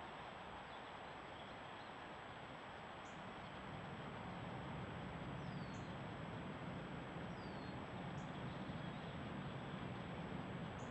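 Steady hiss from a trail camera's microphone with a thin high electronic whine, a few faint short bird chirps, and a low rumble that grows a little louder about four seconds in.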